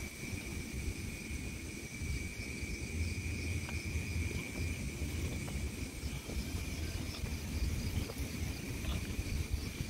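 Night insects, crickets, trilling steadily in one unbroken high drone with fainter higher trills, over a low rumble.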